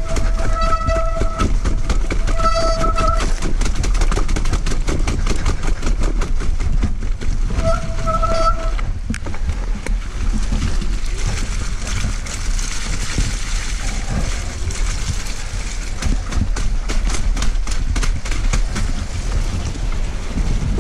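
Mountain bike riding down a snowy trail: wind on the microphone and tyres rumbling and rattling over the rough ground. In the first nine seconds there are three short, steady, high squeals, most likely the bike's disc brakes.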